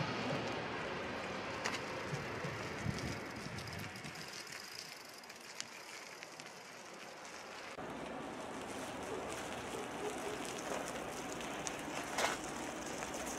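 Outdoor noise of bicycles being ridden over paving, with wind on the microphone and a few light clicks. The background changes abruptly about eight seconds in.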